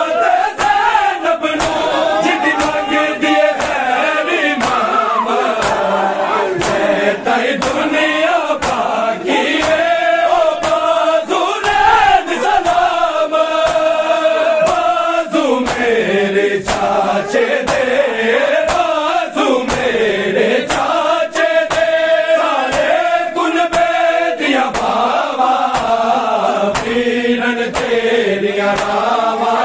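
A crowd of men chanting a Punjabi noha (mourning lament) in unison, kept in time by a steady rhythm of sharp chest-beating slaps (matam).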